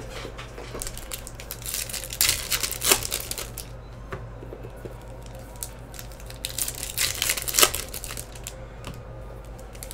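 Foil wrappers of Topps Star Wars Chrome trading-card packs crinkling and tearing as packs are handled and ripped open by hand, in short crackly bursts that are loudest about two to three seconds in and again around seven seconds in. A low steady hum runs underneath.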